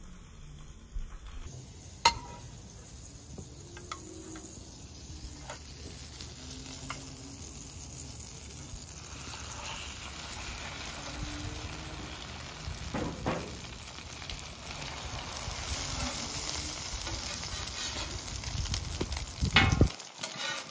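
Egg-battered sandwiches sizzling in butter on a hot flat-top griddle, the sizzle growing louder as they cook. A few sharp clicks come from the metal spatula against the steel plate, the loudest about two seconds in and several near the end.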